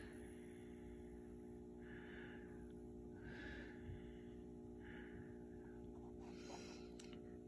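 Faint steady hum of a lit vintage Westinghouse 15 W cool white fluorescent lamp's fixture and ballast. Soft breathing close to the microphone comes roughly every second and a half.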